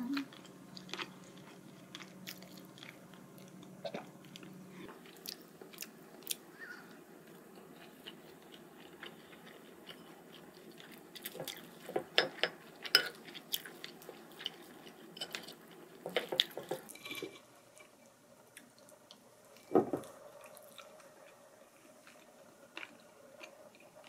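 Close-up eating sounds: soft chewing, with a wooden spoon clicking and scraping against a ceramic plate in scattered clusters and one louder knock a little past the middle.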